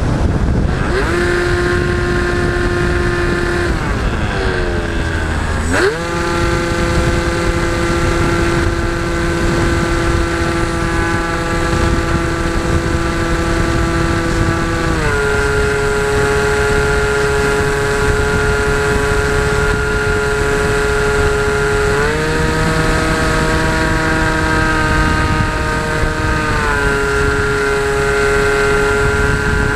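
Onboard sound of a radio-controlled model aircraft in flight: its motor runs at a steady pitch that dips and climbs again about five seconds in, then steps to new pitches a few more times as the throttle changes, over the rush of wind on the microphone.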